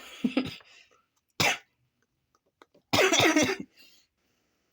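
A person coughing three times, harsh and throaty, the last the longest and loudest.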